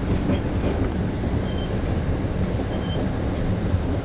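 Steady low rumble of a subway train car running on the rails, heard from inside the car, with two brief faint high squeaks partway through.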